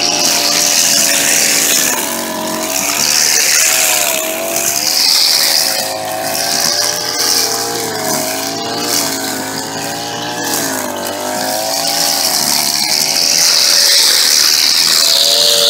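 String trimmer's engine running at high revs, its pitch repeatedly dipping and recovering as the nylon line cuts through grass and weeds, with a steady hiss from the whirling line.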